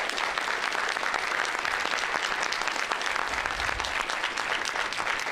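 Audience applauding steadily: a dense clatter of many hands clapping.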